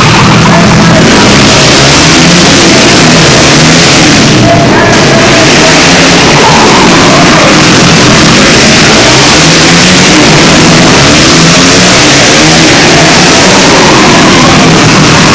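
A pack of racing motorcycles running hard around a tight oval, several engines revving up and easing off in overlapping rising and falling notes, very loud.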